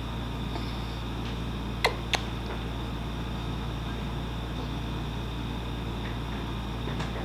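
Steady low room hum, as from an appliance or ventilation, with two sharp clicks a quarter of a second apart about two seconds in.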